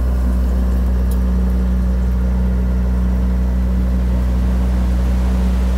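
Amel Super Maramu ketch's inboard diesel engine running steadily under way: an even, deep drone that does not change.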